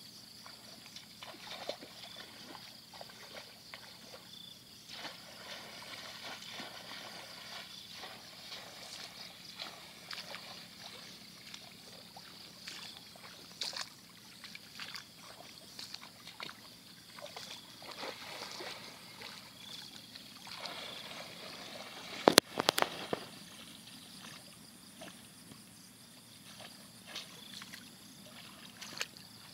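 Shallow water sloshing and splashing in irregular strokes as people wade and grope through a flooded grassy field, over a steady high-pitched hum. A quick cluster of sharp knocks about two-thirds of the way through is the loudest sound.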